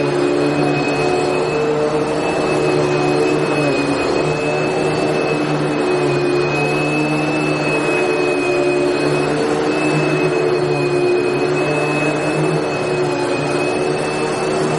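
Vacuum cleaner running continuously at a steady level: a dense rush of air with a constant high motor whine and a low hum.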